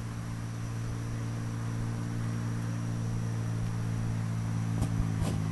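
Steady low motor hum, growing slightly louder, with a faint thin high tone above it. Two short clicks come near the end.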